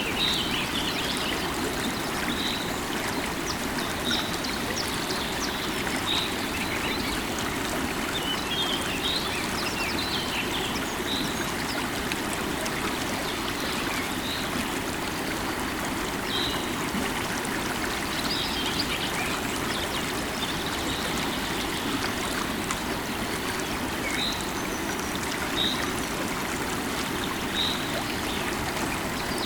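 Steady rush of a flowing river, with birds singing over it: short high chirps every second or two and, now and then, a brief twittering phrase.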